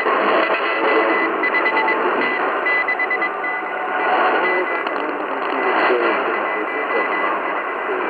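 Shortwave signal on 6000 kHz through a Tecsun portable radio's speaker: an unidentified station's audio in a thick hiss of static, narrow and band-limited. A high-pitched Morse code tone keys on and off over it in dots and dashes.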